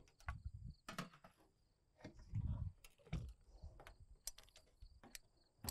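Light clicks and knocks of metal food trays being set into a box-type solar oven, with a few soft low thumps in the middle.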